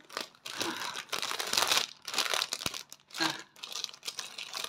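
Packaging crinkling and rustling in irregular bursts as a diamond-painting kit's stuck contents are pulled and worked out of it, loudest a little under two seconds in.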